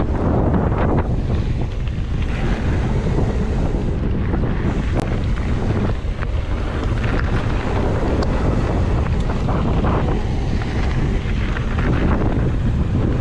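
Heavy wind buffeting on the camera's microphone as a mountain bike rides at speed on a trail, with scattered clicks and knocks from the bike rattling over rough ground.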